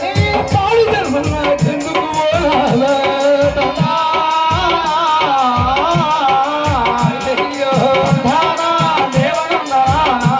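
Telugu devotional folk song sung by the stage performers, with small hand-held drums beating a steady rhythm of about two to three strokes a second.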